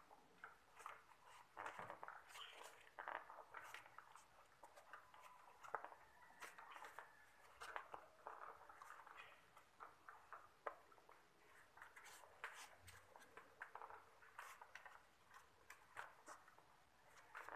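Faint, scattered rustles and light clicks of hands handling the insulated refrigerant pipes and wiring of a split-type air conditioner.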